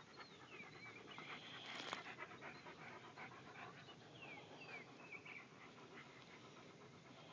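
Shiloh Shepherd dogs panting faintly in quick, rhythmic breaths, with a few short, high squeaks that fall in pitch.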